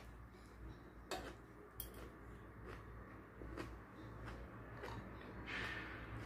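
Quiet mealtime sounds: a metal fork and spoon clicking and scraping against a plate, a scatter of single taps a second or so apart.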